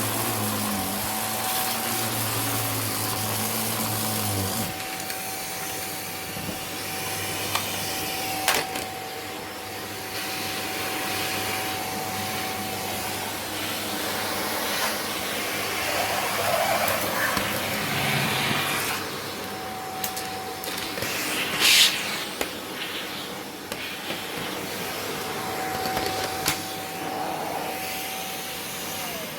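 Vacuum cleaner running with a steady motor whine and noisy airflow, with occasional clicks and a sharp rattle about twenty-two seconds in; a deeper hum drops away about four seconds in, and the motor starts to wind down, its pitch falling, at the very end.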